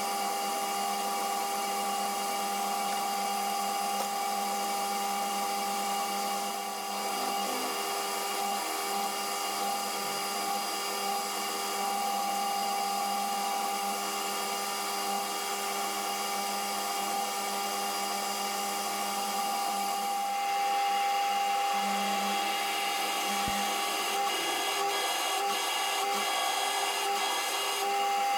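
Metal lathe running with a steady motor and gear whine. About two-thirds of the way through the sound grows louder and brighter, with a few light ticks near the end.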